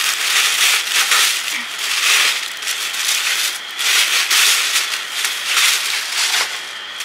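White tissue-paper wrapping crinkling and rustling in irregular bursts as it is pulled off and crumpled by hand.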